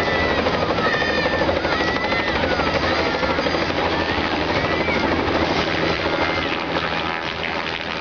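Bell 206 JetRanger-type helicopter hovering low, its two-blade main rotor and turbine giving a steady beating drone.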